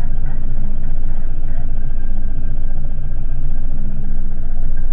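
Outboard motor of a small aluminium boat running steadily, loud and even.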